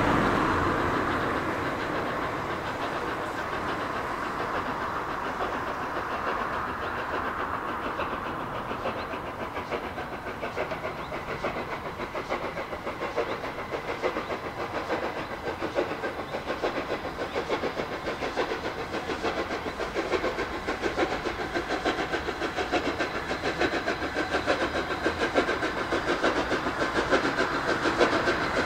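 Steam train hauled by the Gresley A3 locomotive Flying Scotsman running with a rapid, even beat. It is loud at first, eases off, then builds again toward the end.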